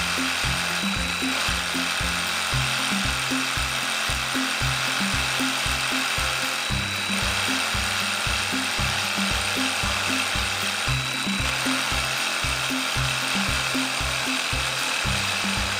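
Stanley 18-volt battery reciprocating saw cutting wood, running without a break, under background music with a steady bass beat.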